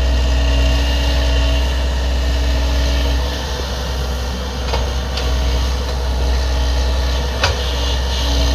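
Excavator running steadily with a low engine hum, with a few sharp knocks partway through, the loudest near the end.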